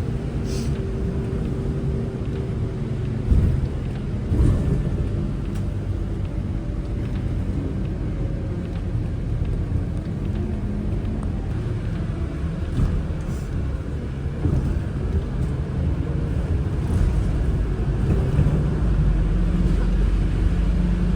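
Motor vehicle running: a steady low rumble, with two brief knocks about three and four seconds in.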